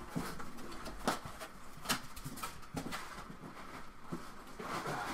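Packaging and parts being handled: irregular sharp clicks and taps, the strongest about a second and two seconds in, over light rustling.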